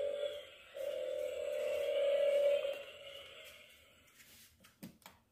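Tinny electronic sound from the built-in speaker of a battery-powered ride-on toy Mercedes, set off from the buttons on its steering wheel: held electronic tones that break off about half a second in, start again and fade away about three seconds in. A few faint clicks follow near the end.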